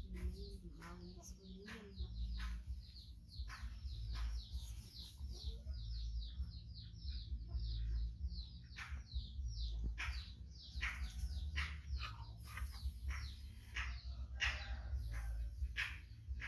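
Small birds chirping continuously, a dense run of quick, falling chirps several times a second, over a low, steady rumble.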